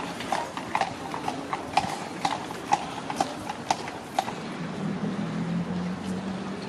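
A horse's hooves clip-clopping at a walk, about two strikes a second, stopping a little past four seconds in; a steady low hum then sets in.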